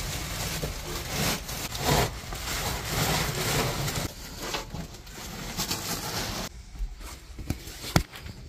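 Large plastic sack rustling and crinkling as it is pressed down and shifted, with a sharp knock near the end.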